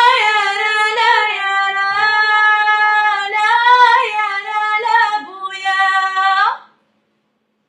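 A woman's voice singing a Riffian folk song unaccompanied, in long held notes with wavering ornamented turns; the singing stops near the end.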